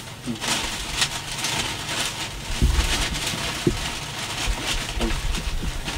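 Crinkling and rustling of a plastic carrier bag being handled close to a microphone, with a few dull knocks about two and a half to five seconds in.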